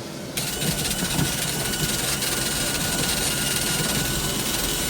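A machine runs steadily with a thin, even high whine over a broad hiss.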